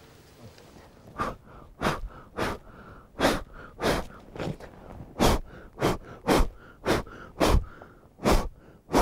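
A man's short, forceful breaths close to the snow, about a dozen at roughly two a second, starting about a second in, with softer breathing between them.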